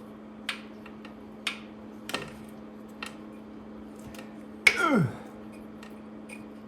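Wrench clicking and clinking on the rusted exhaust manifold nuts of a Lotus 907 engine as they are forced, a few sharp clicks about a second apart. About two-thirds through comes the loudest sound, short and falling steeply in pitch, over a steady low hum.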